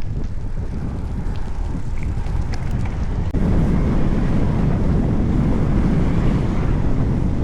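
Strong wind buffeting the microphone of a camera on a moving bicycle, a dense low rumble that gets suddenly louder about three seconds in.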